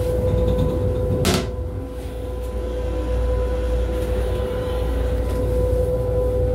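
Interior noise of an M7 railcar restroom: a steady low rumble with a constant hum running over it. A single sharp knock sounds about a second in.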